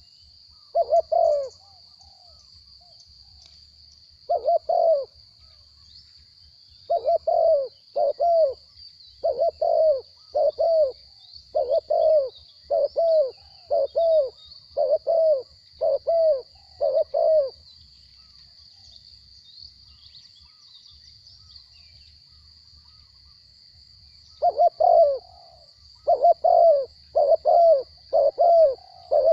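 Spotted dove cooing: a long run of repeated coos, each a quick double note, falling silent for several seconds past the middle and starting again near the end. A steady high-pitched hiss runs underneath.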